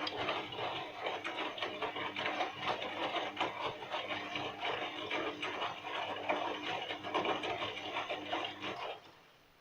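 Bosch washing machine filling with water for the rinse: water splashing in and the inlet valve humming steadily, then cutting off suddenly near the end as the fill stops.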